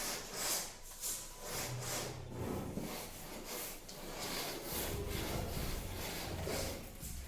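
Repeated scraping strokes on plaster, about two a second, as excess plaster is worked off a freshly fitted plaster cornice molding.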